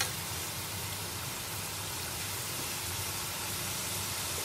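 Mutton pieces sizzling steadily in hot oil in an aluminium pressure cooker pot, an even hiss with a faint low hum underneath.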